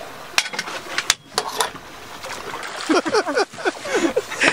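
Water splashing and knocking at the boat's side as a hooked fish is brought to a landing net, with short excited cries in the last second and a half.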